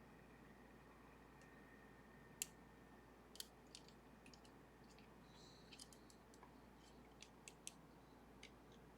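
Faint, scattered small metallic clicks of a lock pick working the levers inside a Sargent and Greenleaf 4440 safety deposit box lever lock, with a sharper click about two and a half seconds in and little runs of clicks after the middle.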